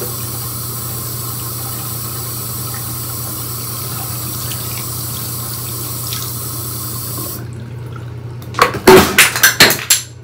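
Bathroom sink tap running steadily, shut off about seven seconds in. A second later comes a loud clatter of hard objects knocking against the sink and counter, the loudest sound here.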